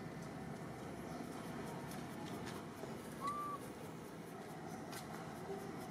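Steady low background noise, broken about three seconds in by a single short animal call, one brief tone that rises and falls.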